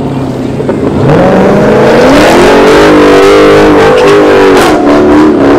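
Dodge Charger's engine revving up sharply about a second in and held at high revs in a burnout, with tyre noise; the revs dip briefly near the end and climb again.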